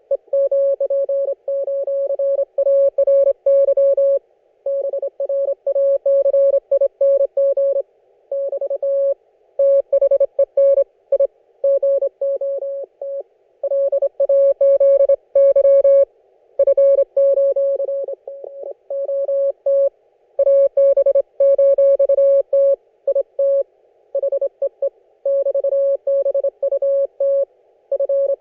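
Morse code (CW) signal received on an Icom IC-718 ham radio transceiver: a tone of about 600 Hz keyed on and off in dots and dashes, over a narrow band of receiver hiss. The signal fades briefly about two-thirds of the way through, then comes back.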